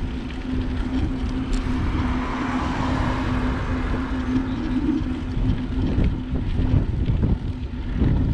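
Wind rumbling on the microphone of a moving bicycle, with road and traffic noise that swells about two to three seconds in. A steady low hum runs underneath and stops near the end.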